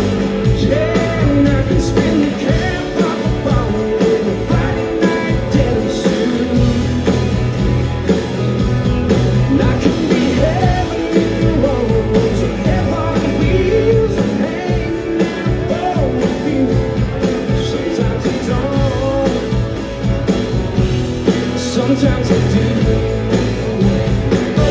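A live country-rock band playing, with drums, electric guitars and acoustic guitar, and a male lead voice singing over them.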